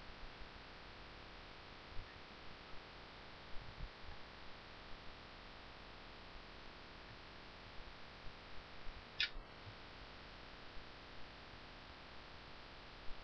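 Faint steady microphone hiss and hum, with a few soft computer-mouse clicks and knocks. The sharpest click comes about nine seconds in.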